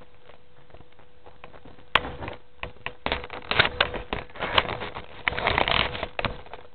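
Footsteps crunching and clicking on a dry forest path: irregular sharp crackles that start about two seconds in.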